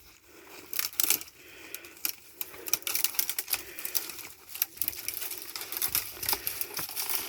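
Footsteps crunching through dry leaves and brush, an irregular run of crackles and clicks.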